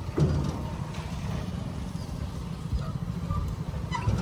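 Swaraj 744 XT tractor's three-cylinder diesel engine idling steadily, with a single thump near the start.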